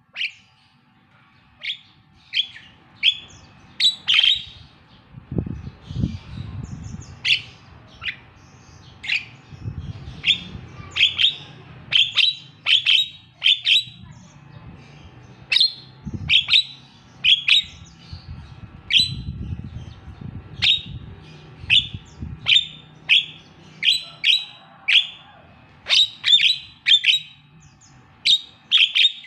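Javan myna calling: a long series of short, sharp calls, about one a second, some coming in quick runs of two or three.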